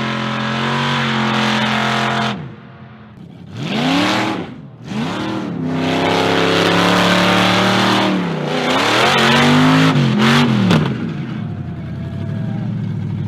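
Big-block V8 of a Chevrolet Impala revving hard. It holds high revs for a couple of seconds, drops, gives two quick blips, holds high again, rises once more, and settles to a steady lower rumble near the end.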